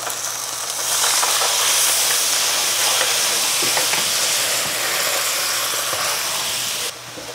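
Water poured into a hot electric skillet, sizzling and hissing as it boils off in steam while a wooden spatula stirs. The sizzle swells about a second in and drops away abruptly near the end.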